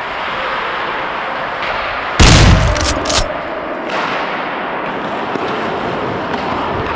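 A loud bang about two seconds into play on a hockey rink, with two more sharp knocks within the next second and a low rumble that drops away, over steady rink noise.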